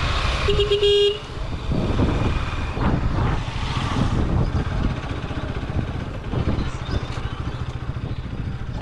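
Road traffic with engines running steadily, and a short vehicle horn honk about half a second in.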